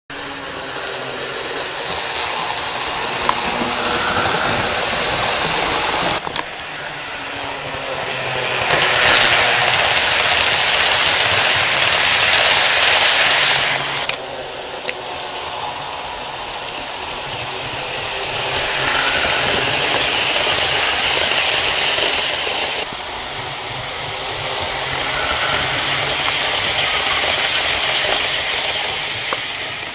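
Model train running on its layout track, its small electric motor and wheels whirring and rattling, swelling louder and fading several times as it passes near and moves away.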